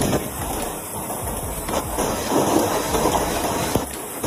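Hailstorm with heavy rain pelting down in strong wind: a dense, steady noise with scattered sharper hits.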